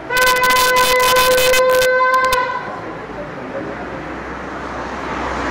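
A long horn blast on one steady note, lasting a little over two seconds, with rapid clicks through it. It gives way to the noise of a crowd in the street.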